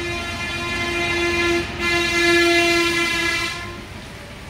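A horn sounding a long, steady, single-pitched blast, briefly broken about a second and a half in, then fading out near the end.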